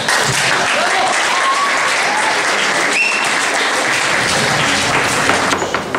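Audience applauding, a dense steady clapping that dies down about five and a half seconds in.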